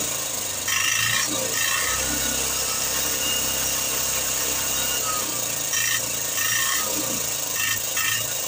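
Single-cylinder diesel engine of an Ape auto-rickshaw idling steadily.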